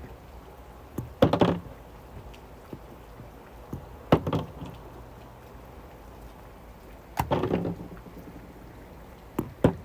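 Rain falling steadily as an even background hiss, with about five short knocks and thunks of plastic toy pieces being handled: at about one second, four seconds, seven seconds and near the end.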